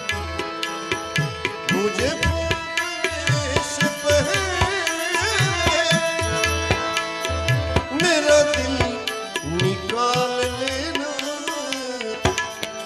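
Instrumental interlude of a ghazal: tabla keeping a steady beat under a melodic instrument playing sliding, ornamented phrases.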